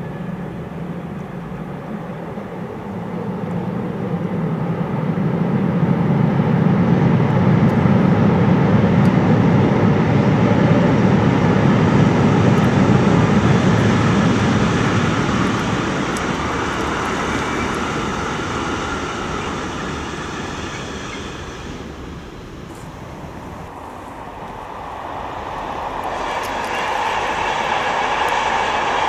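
Electric freight train, BB 36333 locomotive hauling Shimmns tarpaulin-covered wagons, running past on the rails: a low rumbling roll that swells, holds for about ten seconds and fades away. Near the end a Corail passenger train comes by, its higher-pitched rolling noise growing louder.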